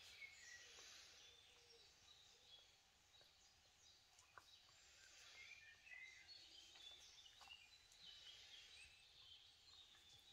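Faint twittering of small birds: many short, high chirps overlapping one another.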